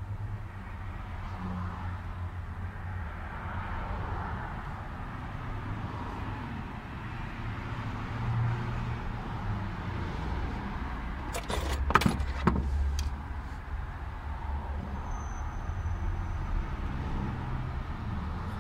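Hand tools clicking and clinking against the fuel pump assembly, a quick cluster of sharp metallic clicks about twelve seconds in, over a steady low rumble.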